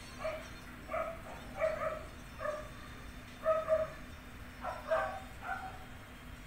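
A dog barking off and on, about ten short barks in irregular groups.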